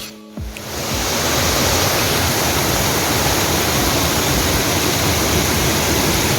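Loud, steady rush of falling water, building up over the first second and then holding even.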